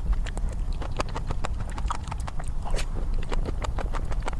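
Close-miked mouth sounds of eating cream cake: rapid, irregular wet smacking and chewing clicks.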